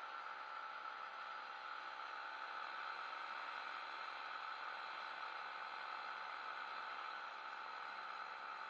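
Steady drone and rush of a powered paraglider in flight: engine and propeller noise mixed with wind, with no change in pitch or level.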